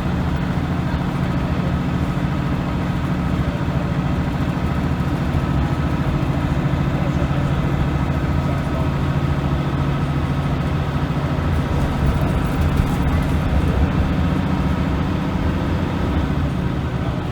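Leyland National 2 bus's Leyland L11 six-cylinder diesel engine running steadily while the bus is driven, growing a little louder for a couple of seconds about twelve seconds in.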